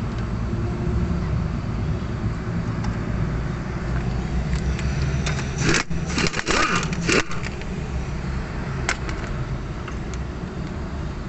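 Steady low mechanical hum with a quick cluster of sharp metallic clinks and knocks about six to seven seconds in, and one more click near nine seconds: hand tools on metal during front shock absorber work.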